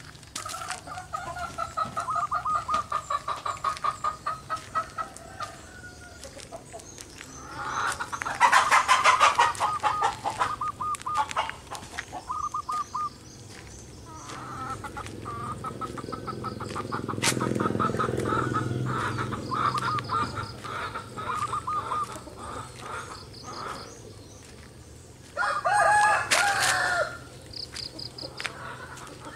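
Zebra doves cooing in long, rapid trains of short staccato notes, repeated phrase after phrase. Twice, about eight seconds in and again near the end, a louder, harsher rooster crow cuts across them.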